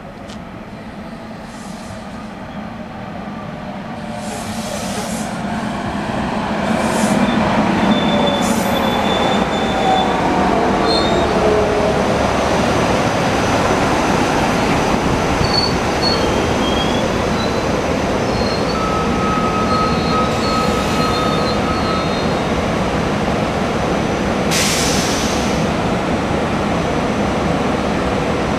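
SEPTA Silverliner IV electric commuter train pulling into the station along the platform: the rumble of its wheels grows louder over the first several seconds, then holds steady. A falling whine comes about six to ten seconds in, and brief wheel squeals come around nine seconds and again around twenty seconds.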